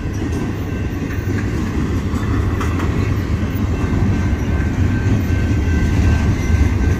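Double-stack container well cars of a BNSF intermodal freight train rolling past: a steady low rumble of steel wheels on the rails, growing a little louder.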